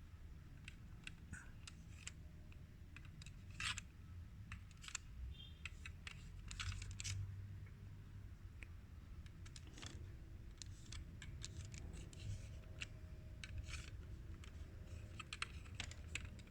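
Faint, scattered clicks and short scratching strokes of small plastic and metal parts being handled and fitted while a CD player's disc-drive mechanism is reassembled by hand.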